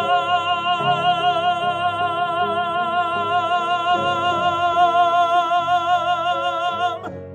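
A singer holds one long note with wide vibrato, the drawn-out last word "along", over piano accompaniment. The note cuts off about seven seconds in and the piano carries on alone.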